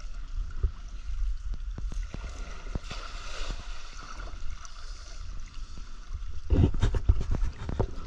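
River water splashing and sloshing as a person wades through it, with a low rumble underneath; the splashing gets louder and busier near the end.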